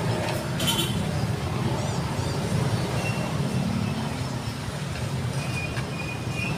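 Steady low rumble of motor-vehicle traffic, with a few faint high chirps about two seconds in.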